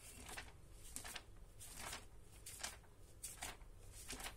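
Faint rustling of the paper pages of a handwritten notebook as they are handled and turned: a series of short, soft swishes.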